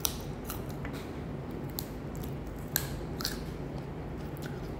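Raw carrot sticks being bitten and chewed, a handful of sharp, irregular crunches over a low steady hum.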